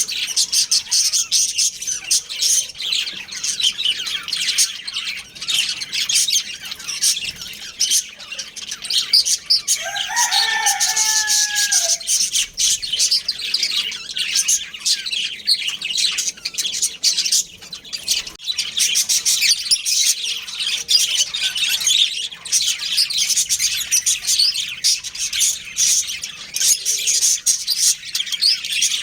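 Budgerigars chirping and chattering without pause in a dense, high twittering. About ten seconds in, a lower, drawn-out two-part call from another bird sounds over them for about two seconds.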